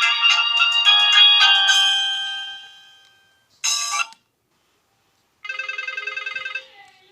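Nokia 1616 ringtones played one after another. A melodic ringtone of quick notes fades out about three seconds in. Then comes a short half-second tone, and near the end a rapidly pulsing tone lasting about a second.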